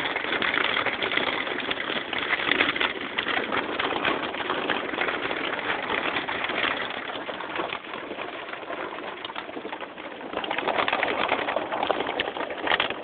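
Heavy rain pelting a car's roof and windows in a wind storm, heard from inside the car as a dense crackling patter. It eases, then grows heavier again about ten seconds in.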